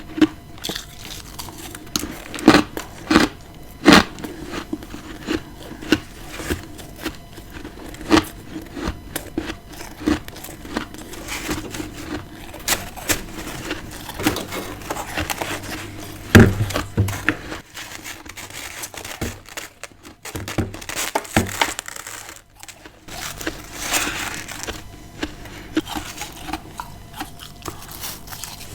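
Close-up chewing and crunching of humidifier-grown freezer frost, with irregular sharp crunches and softer crackling and crinkling between them. The loudest crunch comes about halfway through.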